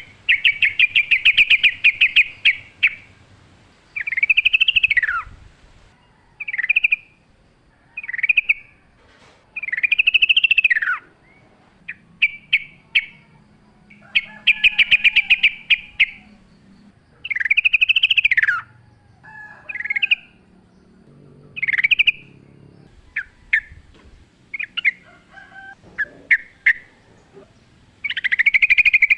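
Yellow-vented bulbul singing phrase after phrase, about one every second or two: fast rattling trills alternate with arched notes that rise and then fall, and with short clipped notes.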